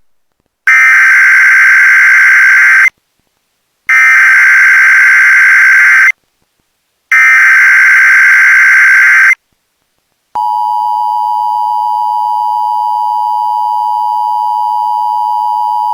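Emergency Alert System SAME header: three harsh, warbling data bursts of about two seconds each, separated by about a second of silence. They carry the coded alert that introduces an AMBER Alert. About ten seconds in, the steady two-tone EAS attention signal begins and holds.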